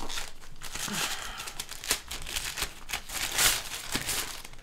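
Torn white plastic mailer packaging crinkling and rustling in irregular bursts as it is handled, pulled off a cardboard box and crumpled up.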